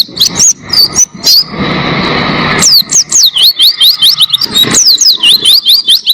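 Pleci (white-eye) singing a long, fast, high-pitched song of quick falling whistled notes, several a second, most continuous in the second half. For the first two seconds or so a rushing background noise runs underneath.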